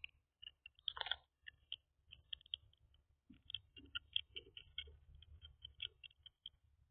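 Faint, irregular light clicks and taps, several a second, over a low rumble.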